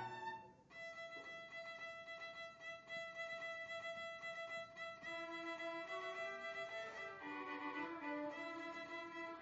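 Solo violin with string orchestra accompaniment. After a brief pause near the start, the violin holds one long high note for about six seconds, with lower string notes entering beneath it partway through, then moves on to shorter notes.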